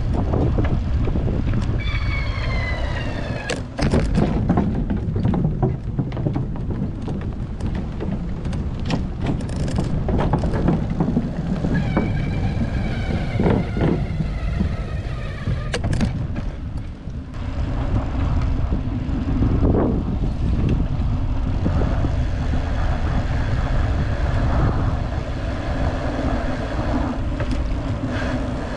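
Wind buffeting a handlebar-mounted camera microphone, with tyre and trail rumble from a vintage road bicycle being ridden, and a few sharp knocks. Twice, about two and twelve seconds in, a high tone with overtones falls in pitch over a second or two.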